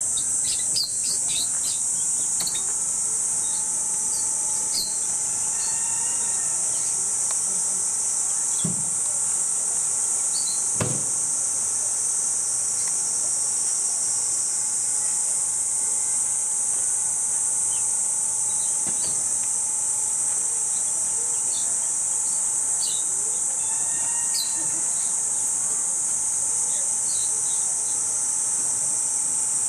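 Steady, high-pitched shrilling of cicadas in a summer chorus, with short high chirps scattered over it.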